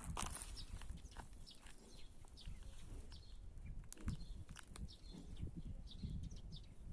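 Small songbirds chirping and twittering in many short, scattered calls, over a low, uneven rumble.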